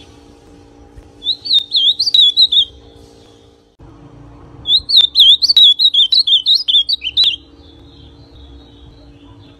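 Young male ultramarine grosbeak (azulão) singing two warbled phrases of rapid rising-and-falling whistled notes. The first phrase is short and comes about a second in. The second is about twice as long, starts near the middle and ends about two seconds before the end.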